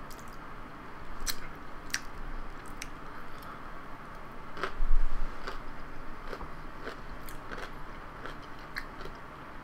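Close-up eating of jajangmyeon noodles: chewing and wet mouth sounds with scattered small clicks. A louder burst comes about five seconds in as a mouthful of noodles is taken.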